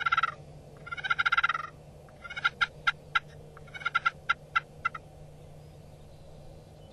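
Eastern wild turkey gobbler gobbling: a rattling gobble about a second long near the start, followed by two broken runs of short, sharp notes, then quiet.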